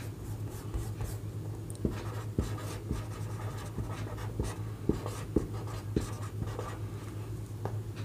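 Pen writing and drawing: scratchy strokes across a surface with several sharp taps, over a steady low hum.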